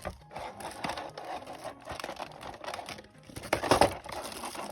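Hands handling a boxed anime prize figure and its packaging: light rustling with small plastic clicks and knocks, louder for a moment about three and a half seconds in.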